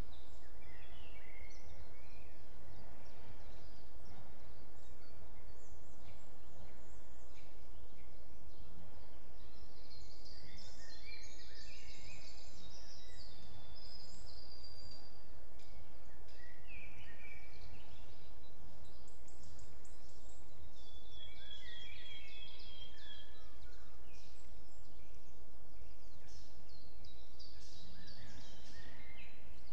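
Forest songbirds singing and calling at intervals, with short chirps and trills that are busiest around the middle and near the end, over a steady low rumble.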